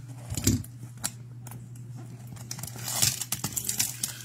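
Hands handling a cardboard box of trading cards: scattered taps and scrapes on the cardboard, a soft thump about half a second in, and denser scraping and rustling near the end.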